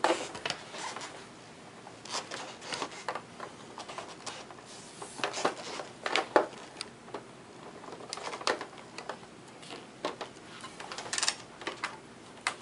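Plastic snap clips of a Gateway ZX4300 case clicking and cracking as a pry tool works along the seam, a run of irregular sharp clicks with short gaps between them.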